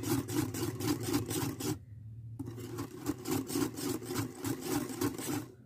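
Wire whisk beating cream and condensed milk in a bowl: rhythmic scraping and sloshing strokes, about five a second, with a brief pause about two seconds in.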